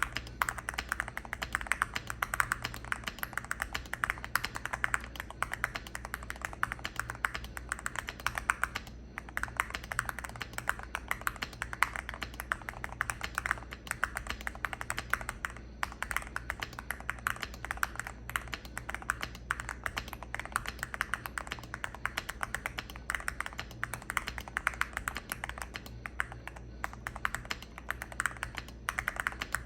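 Continuous fast typing on a Cidoo V65 65% mechanical keyboard with lubed Gateron Milky Clear linear switches, tape-modded and without foam: a quick stream of key clicks and bottom-outs with a couple of brief pauses.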